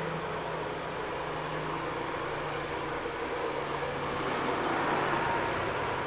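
Flatbed recovery truck's engine running steadily, a low even hum under a broad noisy rumble.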